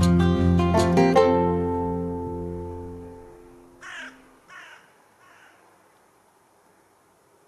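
Background acoustic guitar music strums a last chord about a second in and rings out. Then a crow caws three times, each caw fainter than the last.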